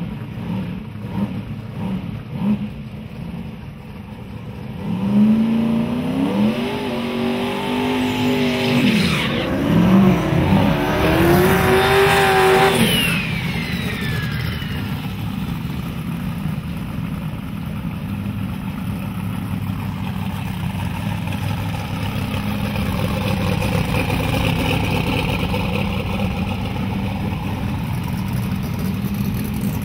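Drag-race cars launching and accelerating hard down the strip: the engine rumble gives way about five seconds in to revving engines climbing in pitch, with steps as they shift gears. The sound is loudest around ten to thirteen seconds, where a whine falls away, and then settles into a steady engine drone.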